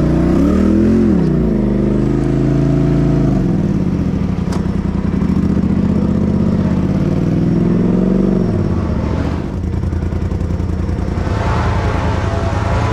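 Side-by-side UTV engine revving up and down as it crawls along a dirt trail, then dropping back to a steady idle about three-quarters of the way in as the machine comes to a stop.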